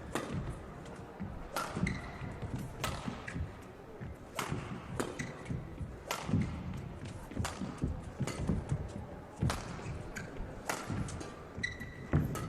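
Badminton rally: rackets striking the shuttlecock in sharp cracks about once a second, back and forth, with players' footfalls and a few brief shoe squeaks on the court.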